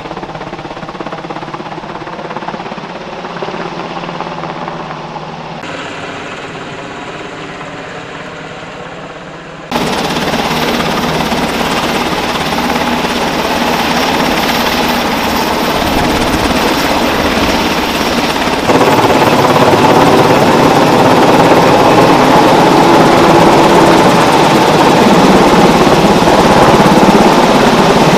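UH-60L Black Hawk helicopter's rotor beat and twin turboshaft engines, first farther off, then much louder at close range as it hovers low over the pond, with the hiss of its rotor downwash on the water. The sound jumps louder suddenly twice, about a third and two thirds of the way through.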